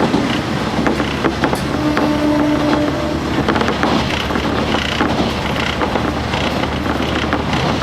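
KiHa 47 diesel railcar heard from on board: a steady low diesel hum with scattered clicks and knocks, and a brief tone about two seconds in.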